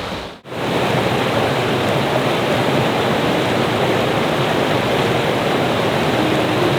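Waterfall rushing in a steady, loud roar of falling water, which starts abruptly after a short break about half a second in.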